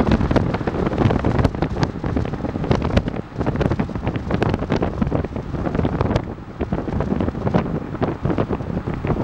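Wind buffeting and road noise from a moving vehicle, rough and unsteady, with many short sharp clicks scattered throughout.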